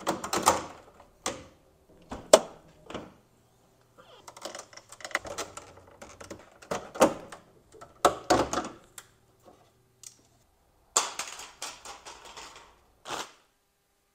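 BMW E46 plastic kidney grille and its clips being pried and pulled out of the bonnet by hand and with a screwdriver: clusters of sharp plastic clicks, snaps and short scraping rattles, with brief pauses between them.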